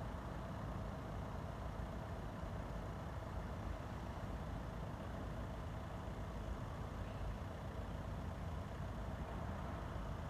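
Steady low outdoor rumble with a faint, steady mid-pitched hum above it; nothing starts or stops.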